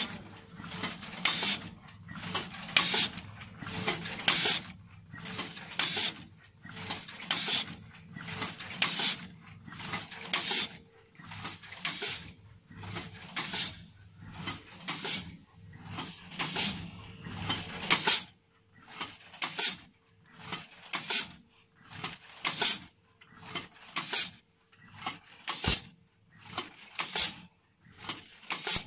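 Horizontal stand-up pouch form-fill-seal machine running. Its pneumatic actuators hiss and clack in a steady cycle, about one and a half strokes a second, over a faint steady whine. A low hum under it stops about two-thirds of the way through.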